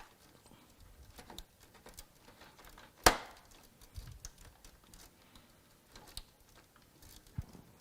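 Small clicks and handling noises of a PC power cable and connectors being fitted, with one sharp plastic click about three seconds in, like a 24-pin ATX connector latching onto the motherboard or a power supply switch being flipped.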